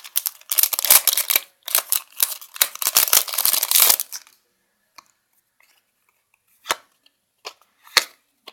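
A Yu-Gi-Oh booster pack's foil wrapper being torn open and crinkled for about four seconds, then a few separate sharp ticks as the cards are handled.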